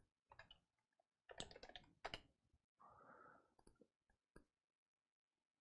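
Faint clicking of a computer keyboard and mouse, with a quick run of clicks about a second and a half in and a short soft hiss around three seconds. The clicks stop about four and a half seconds in.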